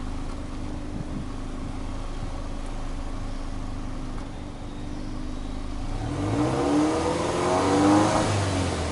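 Subaru Legacy Touring Wagon 2.0GT's turbocharged EJ20 flat-four running at a steady idle through its twin exhaust tailpipes, then revved up and let fall back over the last three seconds.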